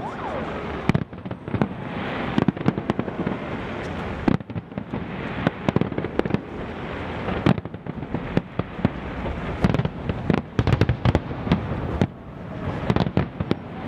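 Fireworks display going off: a dense, irregular run of shell bursts and bangs over a constant crackling.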